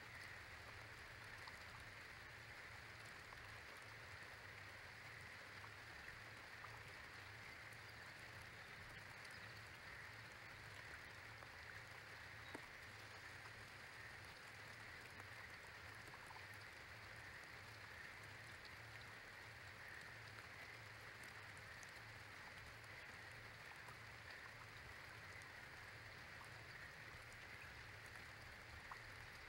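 Faint, steady light rain, with a few soft ticks of drops and a steady low hum underneath.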